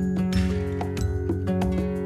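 Instrumental background music, with plucked or struck pitched notes over a sustained bass.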